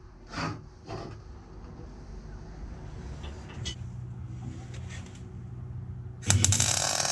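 A few light knocks and clicks from steel parts and magnetic welding squares being set on a metal bench, over a low hum. About six seconds in, a MIG welding arc strikes with a loud, steady crackle as the steel frame is tack-welded.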